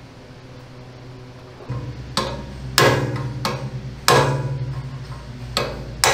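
Hammer blows on a steel drift, knocking out a red-hot, rust-seized handle pin on a tank's armoured vision-block mount. About six sharp, ringing metal strikes start about two seconds in, at uneven intervals.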